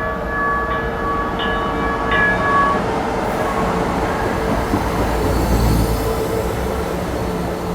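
Train horn sounding a chord in several short blasts over the first three seconds, over the rumble of a moving train, which carries on after the horn stops.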